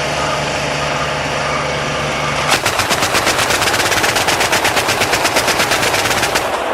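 Twin 35 mm autocannons of a self-propelled anti-aircraft gun firing one long, rapid burst of about ten rounds a second, starting about two and a half seconds in and ending shortly before the end. A steady low drone is heard before the burst.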